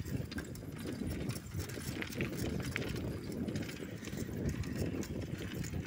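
Bicycle rattling as it rolls over a rough lane: a steady low rumble with many small clicks and knocks, with wind and handling noise on the microphone.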